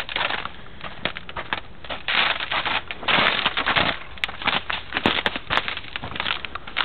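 Footsteps crunching through crusted snow in irregular bursts, with brush crackling.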